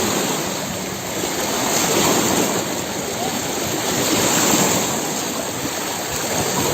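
Floodwater rushing across a highway: a steady rush that swells and eases slightly.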